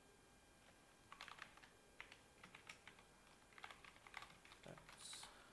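Computer keyboard typing: faint, quick runs of key clicks as code is entered, with a brief hiss about five seconds in.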